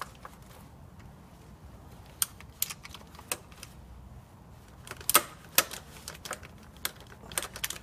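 Ratchet clicking in scattered sharp ticks as a claw-type filter wrench is turned on a car's oil filter housing cap to loosen it.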